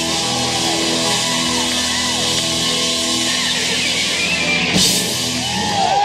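Live rock band playing loud electric guitars over a drum kit, with sustained chords and one sharp cymbal crash near the end.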